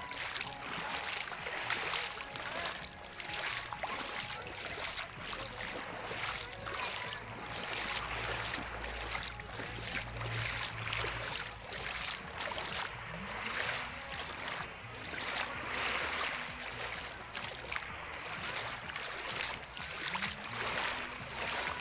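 Small sea waves lapping at the shoreline: a soft washing hiss that swells and fades every few seconds. A low rumble comes in briefly around the middle.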